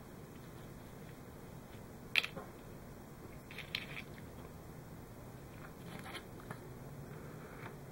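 Faint handling of a small wire connector and hook-up wire on a workbench: a handful of small clicks, the sharpest about two seconds in, then a short cluster and a few more spread through.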